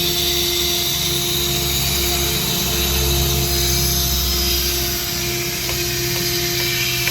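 CNC machine cutting stone: the spindle running steadily, a constant tone over a hiss and low hum.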